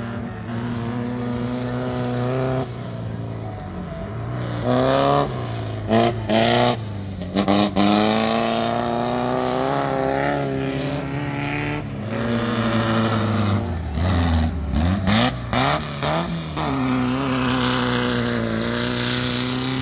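Volkswagen open-class dirt-track race cars with air-cooled flat-four engines revving hard. The engine note climbs in pitch under acceleration, then cuts off briefly several times, most often around a quarter to halfway through.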